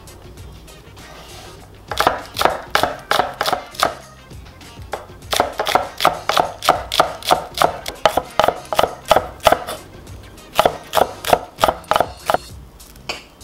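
Kitchen knife chopping onion and green onion on a wooden cutting board: three runs of quick, even strokes, about four a second, each a sharp knock of the blade on the wood.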